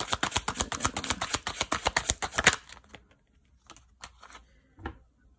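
Tarot deck shuffled in the hands: a rapid run of card clicks, about eight to ten a second, that stops about two and a half seconds in. A few soft taps follow as cards are laid down on the cloth-covered table.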